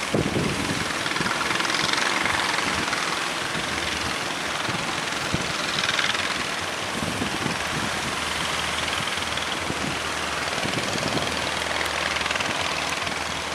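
A fishing boat's engine running steadily under a constant rush of surf and wind, with the noise of breaking waves swelling and fading several times.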